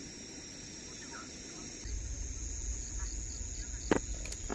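Insects trilling steadily in high, thin tones, with a low rumble of wind on the microphone setting in about two seconds in and a single sharp click near the end.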